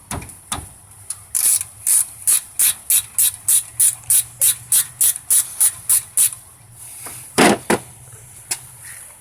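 Hand ratchet wrench clicking at a steady pace, about three to four clicks a second, while a brake caliper bolt is worked. The clicking stops after about five seconds, and a louder knock follows.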